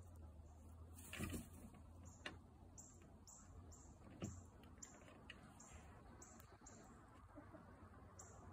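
Near silence outdoors, with a faint, high, short chirp repeating every half second or so from about three seconds in, and a few soft knocks, the first of them just after a second in the loudest.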